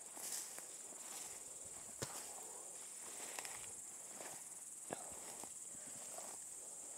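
Grasshoppers chirring in a faint, steady high-pitched drone, with footsteps swishing through tall grass and a couple of sharp clicks about two and five seconds in.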